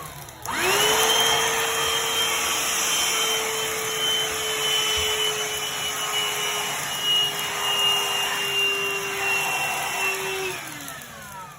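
Black & Decker handheld cordless vacuum switched on: its motor spins up, then runs with a steady high whine and rushing air for about ten seconds. Near the end it is switched off and the whine falls away as the motor winds down.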